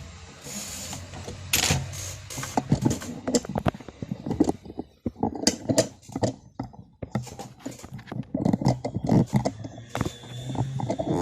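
Irregular clicks and clattering of small hard objects being handled, over a steady low hum.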